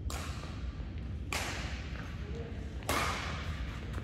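Badminton rackets striking the shuttlecock in a doubles rally: three sharp hits about a second and a half apart, each ringing on in the hall.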